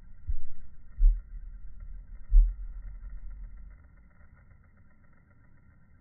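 Low rumble on a phone's microphone, with three dull thumps in the first two and a half seconds, dying down about four seconds in; a faint steady high tone runs underneath.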